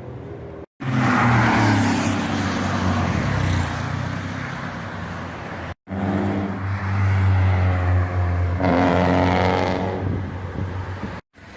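Loud sports-car engines accelerating and revving past, in two clips separated by an abrupt cut. The first is loud from about a second in and then eases off; the second climbs in pitch as the car revs hard near the end.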